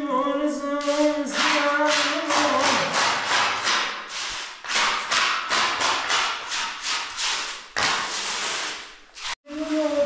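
Steel trowel scraping and spreading wet cement mix across a floor screed in quick repeated strokes, about two to three a second, stopping abruptly near the end. A held sung or chanted voice is heard for the first second or so.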